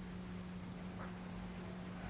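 Quiet room tone: a steady low hum under an even hiss, with one faint short chirp or tick about a second in.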